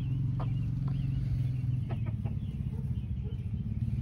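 Bantam Silkie chickens clucking softly, a few short calls in the first couple of seconds, over a steady low hum.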